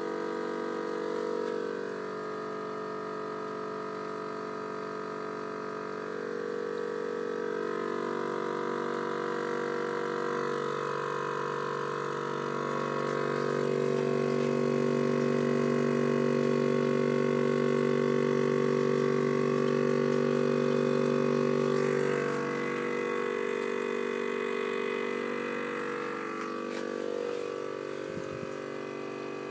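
All In One vacuum pump running with a steady, even hum as it draws wine through a one-micron whole-house cartridge filter. It grows louder for several seconds in the middle.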